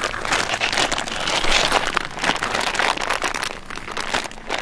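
A clear plastic bag crinkling and rustling as it is handled and pulled open, with a dense run of small crackles that is loudest a second or two in.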